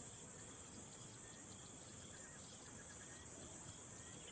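Faint steady outdoor ambience of chirping insects, crickets among them, with no other event.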